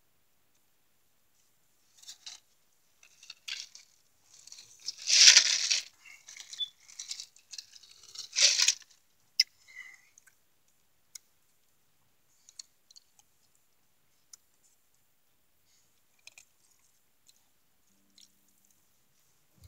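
Handling noise: several seconds of rustling and crinkling in bursts, loudest twice, followed by a few scattered sharp clicks.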